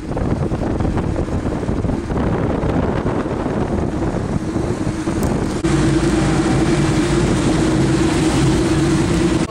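Wind buffeting the microphone and road noise from a moving car. About five and a half seconds in, this gives way to a steady car-engine drone with low rumble.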